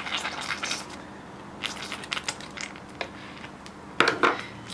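Scattered clicks and crackles of a jar of sourdough starter and its lid being handled, with a cluster of louder knocks about four seconds in.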